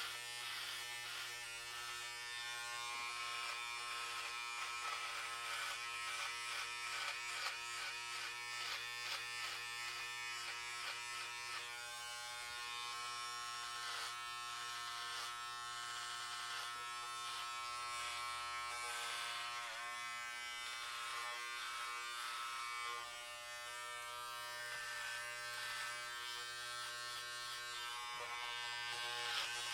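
Electric hair clippers running steadily while cutting hair. The motor tone holds throughout, and the upper sound shifts and flickers as the blades pass through the hair.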